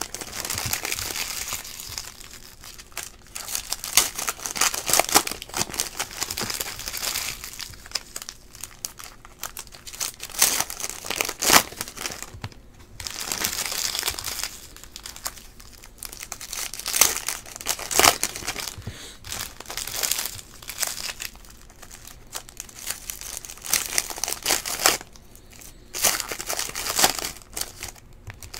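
Foil wrappers of Panini Prizm football card packs being torn open and crinkled by hand, in repeated bursts with short pauses, with stacks of cards handled in between.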